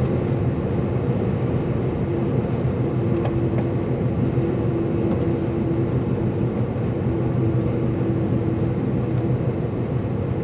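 Steady drone of a truck's engine and tyre noise heard inside the cab while cruising on the highway. A faint steady tone comes in a few seconds in and fades out near the end.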